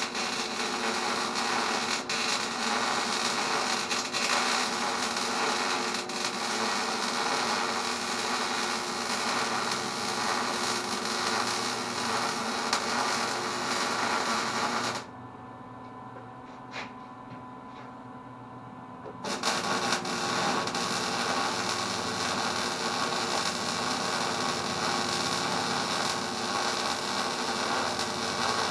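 Electric arc welding: a steady crackling noise with a hum under it. It stops for about four seconds just past the middle, then the arc strikes again and runs on.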